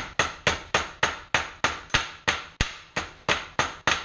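Small hammer tapping on metal in quick, even strokes, about four a second, each with a short ring, while a check valve is worked loose from a pressure-washer pump head.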